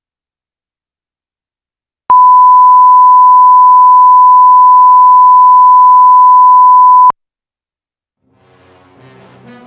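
A steady 1 kHz reference tone, the kind played with broadcast colour bars, starting abruptly about two seconds in, holding for about five seconds and cutting off sharply. Music begins to fade in near the end.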